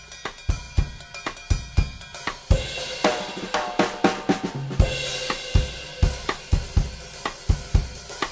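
Drum kit played in a steady groove of kick and snare hits, about four strokes a second, on Zildjian cymbals (K Constantinople rides and A New Beat hi-hats). A cymbal wash comes in about two and a half seconds in and rings over the beat.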